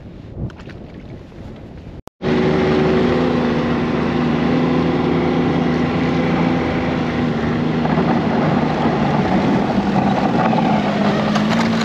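Snowmobile engine running at a steady speed, heard from the rider's seat. Before it, about two seconds of wind noise with a few small knocks, which cut off abruptly as the engine sound begins.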